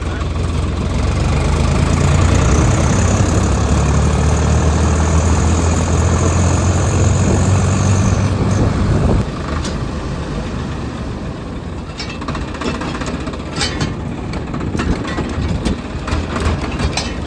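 Tractor engine running, loud and steady with a deep low hum, until it drops off sharply about nine seconds in; after that a quieter rumble with scattered clicks and taps.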